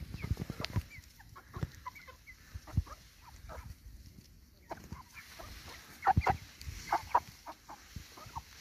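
Young Brahma chickens clucking, with short calls scattered throughout and a louder cluster about six seconds in. There are a few low thumps between the calls.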